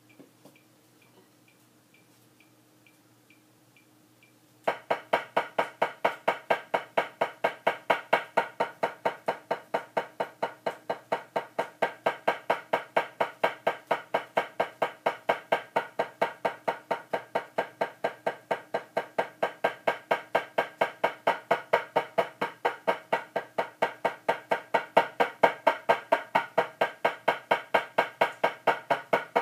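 Drumsticks striking a drum practice pad in an even run of legato strokes, about four a second, as a metronome-paced rudiment exercise. The strokes start about four and a half seconds in, after a faint metronome ticking about twice a second.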